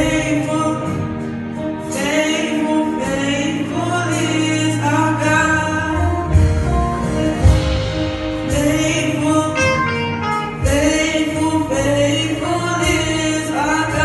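Gospel song performed live: a male soloist singing into a microphone, backed by a men's choir and a band with bass and drum thumps.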